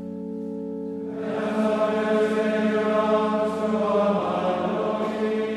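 Latin plainchant sung in unison by a choir in a reverberant chapel: a held note at the start, with the full body of voices coming in about a second in, singing slow, steady held notes.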